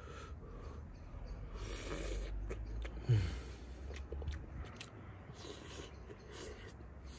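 Chewing and biting on bread soaked in stew juices, with scattered small mouth clicks close to the microphone. A short, low, falling sound about three seconds in is the loudest moment.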